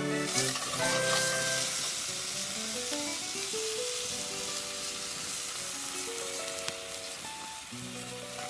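Food sizzling as it fries in oil in a pan, the hiss strongest in the first couple of seconds, over background music playing a simple melody.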